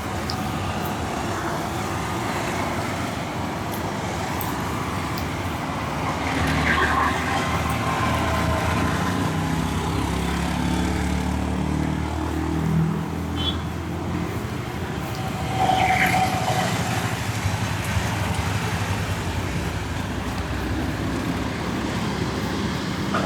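Street traffic: a steady rumble of passing motor vehicles that swells in the middle, with a short higher tone about two-thirds of the way through.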